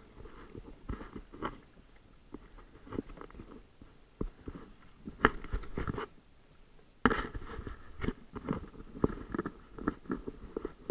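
Irregular knocks, crackles and short splashy bursts from a sit-on-top kayak being paddled through choppy water, with louder bursts about five and seven seconds in.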